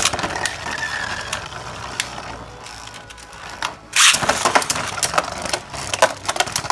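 Beyblade Burst Surge spinning tops on a plastic stadium: one top whirs steadily on the plastic. About four seconds in, a second top is launched from a handheld launcher with a loud rip and clatter, and the two tops then clash with a quick run of sharp clacks.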